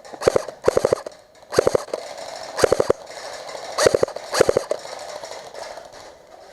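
Airsoft rifle firing about six short bursts of three or four rapid shots each, with pauses of about half a second to a second between bursts, stopping about five seconds in.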